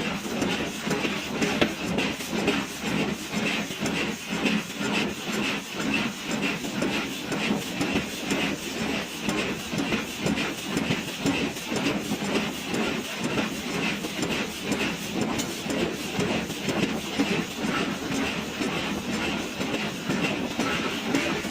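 1000 kg pneumatic forging hammer striking a hot billet in a fast, steady run of repeated blows, a few a second, as the billet is drawn out square.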